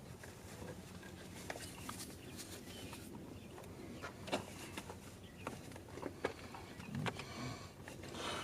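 Scattered light clicks and taps, irregular and a second or so apart, from a hand tool working a small Torx screw out of the eccentric shaft sensor.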